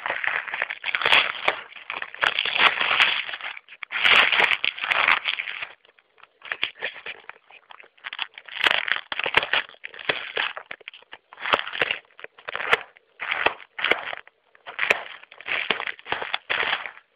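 Packing peanuts and packing material rustling and crunching in irregular bursts as they are handled and pushed aside to free the boxed iMac G3, with occasional sharp crackles.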